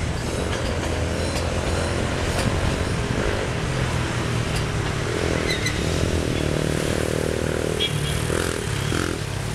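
Motorcycles passing on the road, one engine note swelling from about three seconds in and fading out near the end, over a steady low rumble.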